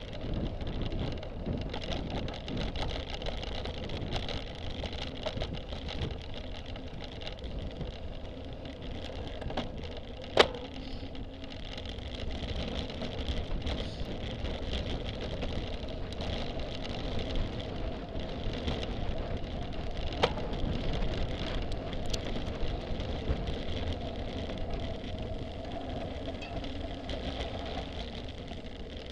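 Cyclocross bike ridden fast over grass and dirt: a steady rumble of tyres and wind on the microphone, with the bike rattling, and two sharp knocks about ten seconds apart.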